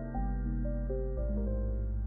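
Background music: soft keyboard notes over a steady bass line, with a note change a little after the start and another about a second in.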